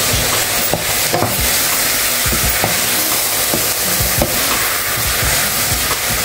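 Chopped onions and tomatoes sizzling steadily in hot oil in a stainless steel pot, stirred with a wooden spoon that gives occasional soft knocks against the pot.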